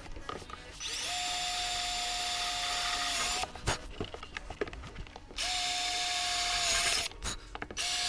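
Power drill with a 9 mm bit drilling mounting holes for a scooter top case, run in three bursts: about two and a half seconds starting about a second in, a shorter burst midway, and a third starting near the end. Each burst opens with the motor's whine rising to speed, then holds steady.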